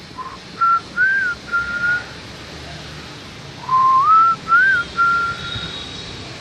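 A whistled tune: a short phrase of clear notes that step and glide upward and lilt, heard twice with a pause between, over a faint steady hiss.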